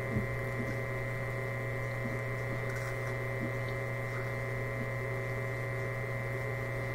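Steady electrical hum with a thin, high whine above it.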